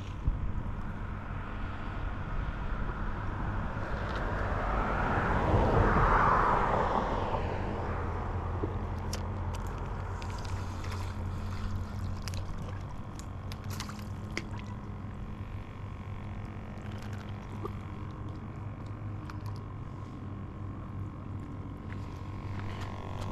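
Steady low hum of a fishing boat's motor on the water, with a rushing swell that rises and fades about five to seven seconds in, and scattered light clicks and knocks after it.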